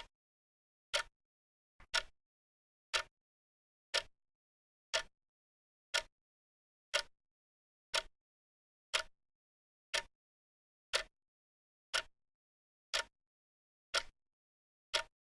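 Clock ticking steadily, one sharp tick a second. Near the start one tick is doubled by a fainter click just before it.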